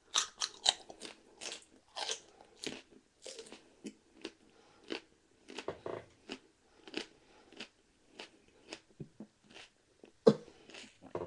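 A person biting into a raw red chili pepper and chewing it: crisp crunching bites at first, then steady chewing about twice a second, with one sharp knock near the end.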